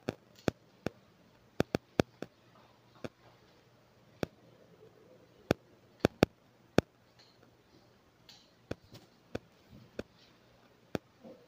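Grooming scissors snipping: about twenty sharp, irregular clicks, some in quick pairs and threes.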